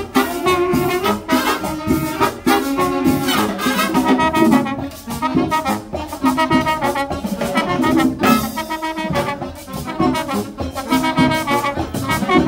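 Marching band of trumpets, trombones and saxophones playing a Latin dance tune over a steady drum beat.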